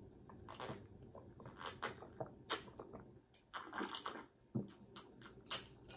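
A person sipping and swallowing a drink from a glass: faint, scattered wet mouth clicks and gulps.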